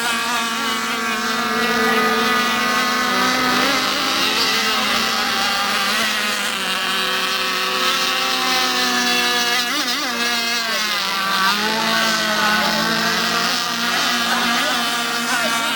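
Several radio-controlled racing boat engines running at once, their high whines rising and falling in pitch as the boats speed up and slow down.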